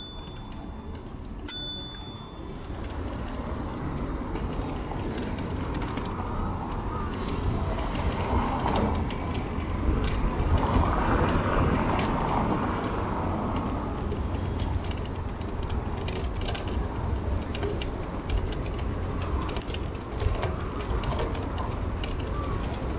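A bicycle being ridden along city streets: a steady low rumble of rolling and wind runs throughout, with frequent light mechanical clicks from the bike.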